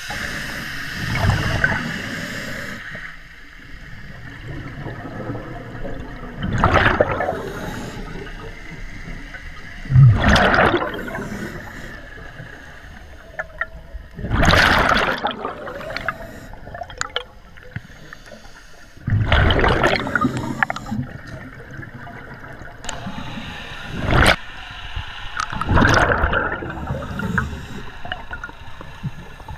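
Scuba diver's exhaled breath bubbling out through the regulator underwater, one loud gurgling surge about every four to five seconds with quieter bubbling between breaths.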